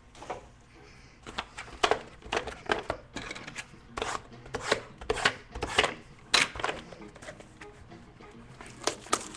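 Cardboard packaging and trading cards being handled as a box of card packs is opened: irregular taps, clicks and rustles, about a dozen sharp ones spread throughout.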